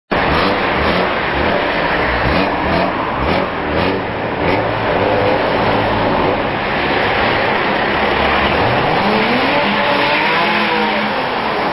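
BMW E36 coupe's engine revving hard while drifting, its pitch climbing and dropping again and again, with a longer rise and fall near the end.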